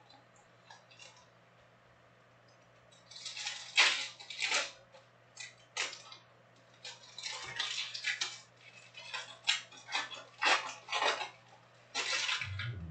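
Foil trading-card pack wrappers crinkling in short, irregular bursts as the packs are handled and opened, starting about three seconds in.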